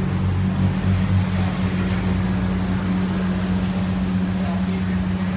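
Steady low mechanical hum of a running motor, holding two even low tones.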